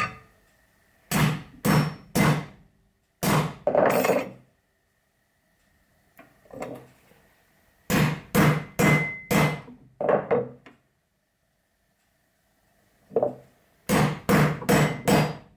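Hammer blows on a hand punch held against a thin brass sheet over a wooden block, driving grating holes through the brass for a grater. The blows are sharp and come in bursts of three to six, with pauses of a second or more between bursts.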